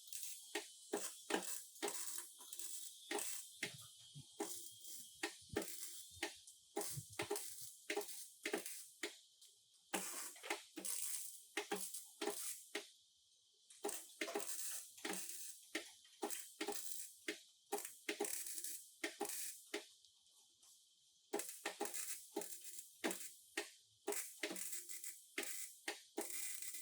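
A fast, irregular run of sharp knocks and clicks, several a second, from hand work on a damaged car body, over a steady high hiss. The knocking pauses briefly about halfway through and again about three-quarters of the way in.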